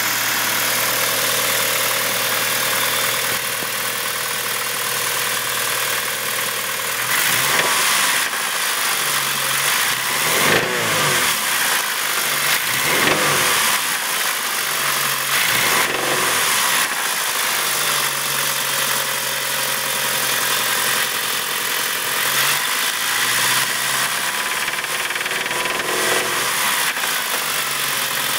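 GSX's 4G63 turbocharged inline-four idling, then revved in several short blips with idle between them. It has a rod knock that the owner says comes in at about 2,000 rpm, the sign of a worn connecting-rod bearing.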